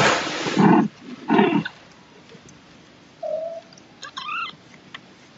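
Cats meowing: two loud, harsh cries in the first second and a half, then two short, thin, high kitten mews about three and four seconds in.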